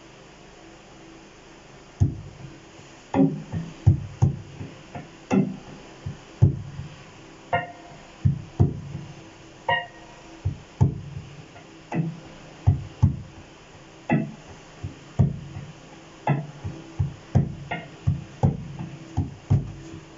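Electric guitar played through a Boss GT-100 multi-effects unit in a jazzy freestyle. Faint amp hiss gives way, about two seconds in, to plucked single notes and chords, each ringing out and fading.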